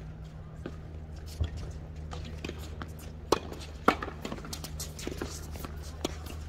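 Tennis rally: sharp pops of tennis balls struck by rackets and bouncing on the hard court, several in a few seconds, the loudest two about half a second apart near the middle, over a steady low hum.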